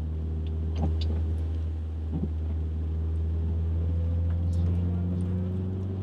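Car running on the road, heard inside the cabin: a steady low drone with a few light ticks over it.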